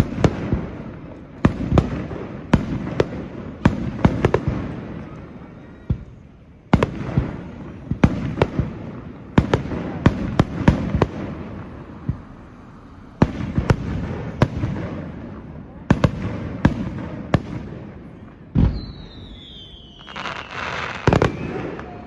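Aerial fireworks bursting in quick succession, sharp bangs each trailing off in a rolling rumble. Near the end a heavy thud is followed by a falling whistle over crackling.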